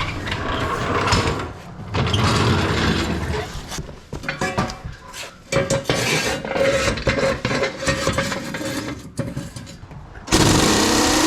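Metal tools and a mechanism working at a wheel: ratcheting and clattering, with a steady whine for a few seconds past the middle and a loud burst of noise near the end.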